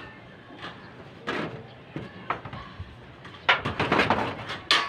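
Sharp clacks and clatter of thin metal channel being handled and worked by hand, with a quick run of clicks about three and a half seconds in.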